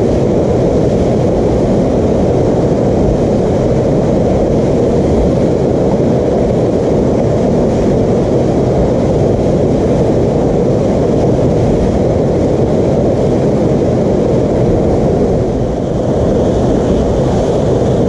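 Loud, low, steady rush of whitewater river rapids pouring over a standing river wave.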